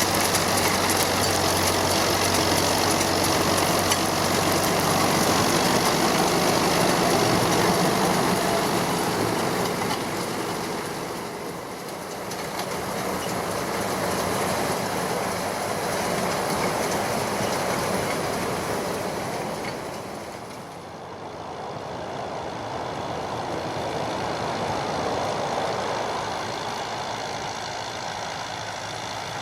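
John Deere 5720 tractor's diesel engine running under load, with a Feraboli Extreme 265 HTC round baler working straw behind it. The noise fades twice and swells back as the machine moves relative to the listener.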